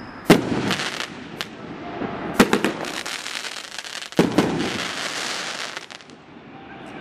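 Consumer aerial fireworks (Dominator's Patriotic Dominance) going off: three sharp bangs about two seconds apart, with smaller cracks between them. Each of the later bangs is followed by a dense crackling that fades out near the end.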